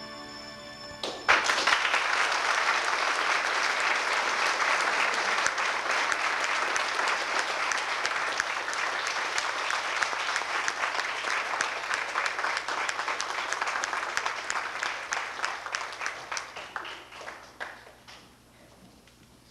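Recorded music ends on a held chord about a second in, and an audience bursts into applause. The clapping carries on, then thins to scattered claps and dies away near the end.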